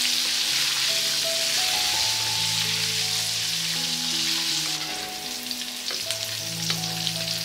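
Flour-coated chicken pieces deep-frying in hot oil in a wok: a steady hiss that, about five seconds in, thins into a crackle of small pops. Soft background music with held notes plays underneath.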